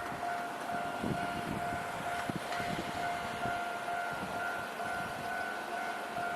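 Japanese level-crossing electronic warning bell on the Nankai Electric Railway ringing, one high tone repeated steadily without pause, with an uneven low rumble beneath it.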